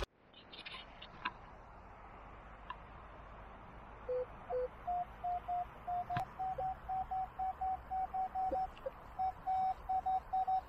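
Metal detector in Park 1 mode giving target tones as the coil is swept over the grass: two short low beeps, then a run of short, higher-pitched beeps about three a second.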